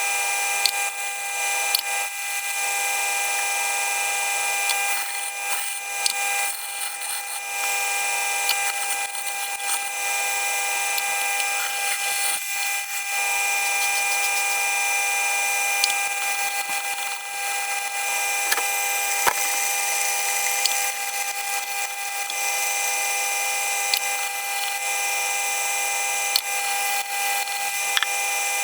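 Jet wet sharpening machine's electric motor running steadily while a knife blade is ground on its 1000-grit wheel, the level dipping and swelling with the strokes. A few short clicks.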